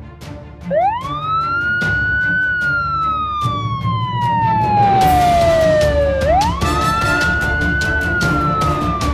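A wailing siren that rises quickly and then falls slowly, twice, over background music with a steady beat.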